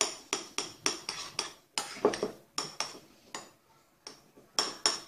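A spoon stirring a creamy mixture in a glass bowl, clinking against the glass in quick repeated strikes, about two to three a second, with a pause of about a second near the end.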